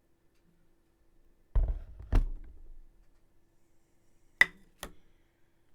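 Objects handled on a tabletop: two dull knocks about a second and a half and two seconds in, then two sharp clicks half a second apart near the end.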